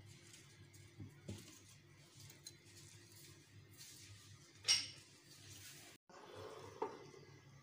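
Quiet room tone with a faint low steady hum and a few light knocks. A little before five seconds in comes one brief, sharp, much louder sound. The sound drops out for a moment about six seconds in.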